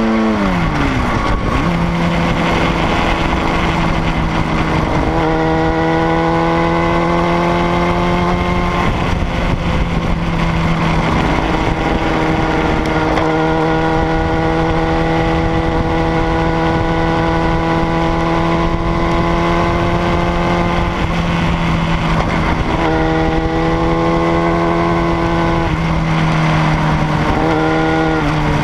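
Sport motorcycle engine running at speed on a winding road. The engine note drops sharply in the first second or so as the throttle closes, then holds and climbs in several steps as the rider works the throttle and gears through the bends. Steady wind rush runs under it.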